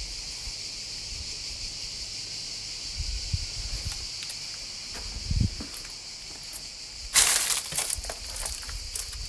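Steady high-pitched chorus of insects, with soft footsteps and a sharp rustling crunch about seven seconds in, followed by a few smaller crackles.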